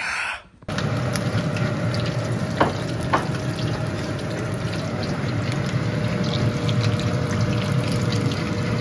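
Battered perch pieces deep-frying in a pan of hot oil, a steady sizzle, with a couple of light clicks about three seconds in. Just before it, a man's brief loud exclamation.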